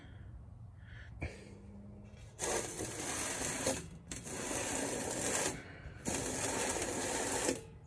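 Scraping and rubbing as the metal body of a homemade gasifier stove is turned against a Sharpie held steady on a block, marking a line around its base. The scraping comes in three stretches of about a second and a half each, with short breaks between them, after a quiet start.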